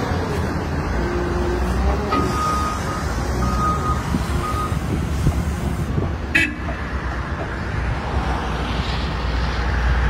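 Cat 962K wheel loader's diesel engine running in a steady low rumble as the bucket is lowered to the ground. A backup alarm beeps three times about two to five seconds in, and a sharp knock sounds about six seconds in.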